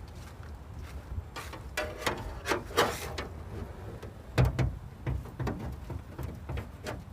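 A paintless dent repair rod knocking and scraping against the underside of an aluminum car hood as it is worked in behind the dent. Irregular clicks and scrapes run throughout, with a couple of heavier knocks about four and a half seconds in.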